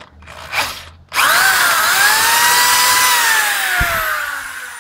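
Handheld power drill with a 3/8-inch twist bit running in a stripped M10-1.5 bolt hole in an aluminum oil pan. It starts suddenly about a second in, whines up to speed and holds, then winds down with steadily falling pitch, with a short low knock near the end. The hole is so stripped that the bit has almost nothing left to cut.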